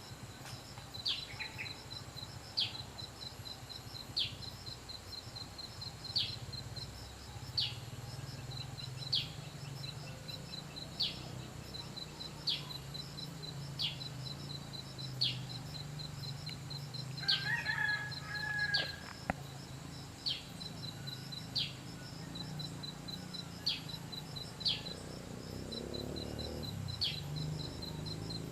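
A bird's sharp, high, downward-sweeping whistle note, repeated about every one and a half to two seconds over a steady, fast, high insect trill. A lower, fuller bird call comes once about two-thirds of the way through.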